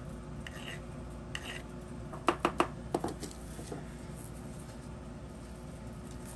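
A hand file rasping across a cast silver bullet in two short strokes, then a quick run of four sharp metallic clacks about two to three seconds in as the file is laid down on the wooden workbench.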